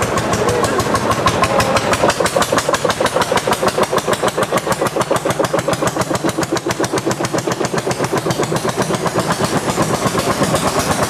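Old farm tractor engine chugging at a steady, even beat while pulling a decorated wagon.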